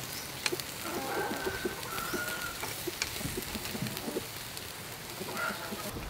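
Beef slices sizzling and crackling on a wire grill over charcoal, with a few sharp clicks of tongs on the grill wire. Birds call in the background.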